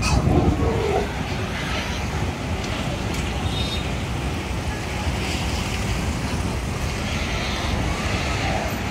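Heavy truck's diesel engine running as the loaded livestock truck pulls away, with road traffic noise; loudest in the first second.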